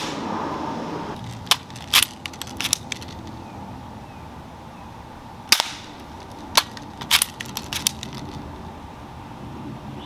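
Crosman Marksman BB pistol firing shot after shot: several sharp snaps a second or more apart, with lighter clicks in between.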